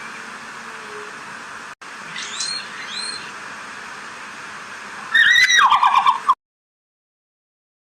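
Red panda calling: a couple of faint high chirps two to three seconds in, then just over a second of loud, rapid, squeaky twittering calls about five seconds in, over a steady background hiss.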